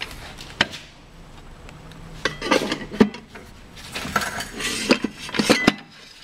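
Metal clinking and scraping as a Ford E4OD transmission's forward clutch drum is worked by hand into the transmission case. A couple of sharp clicks are heard, along with two short spells of rattling and scraping metal-on-metal.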